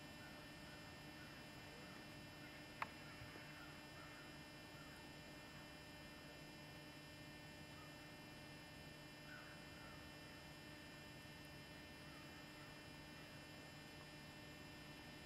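Near silence with a steady faint electrical hum and one sharp click about three seconds in.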